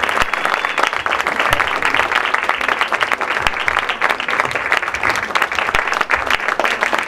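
Audience applauding loudly, a dense continuous clatter of many hands clapping.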